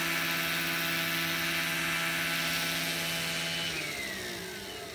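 Large-scale electric Vario BO 105 model helicopter, its motor and rotor giving a steady high whine while it hovers low. About three and a half seconds in, the whine drops steadily in pitch and fades as the rotor spools down after touchdown.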